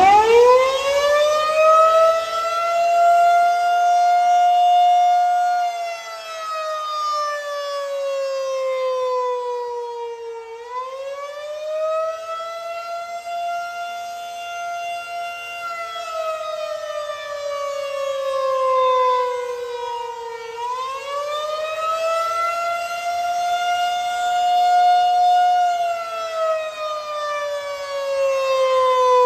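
Federal Signal 2001-130 civil defense siren sounding the Attack signal. It winds up quickly from silence right at the start, then wails slowly up and down, rising, holding at the top and falling again about every ten seconds.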